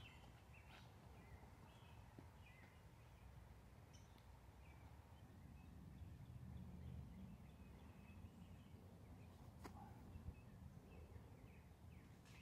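Near silence: faint outdoor park ambience, a low rumble with scattered faint bird chirps and one faint click about three-quarters of the way through.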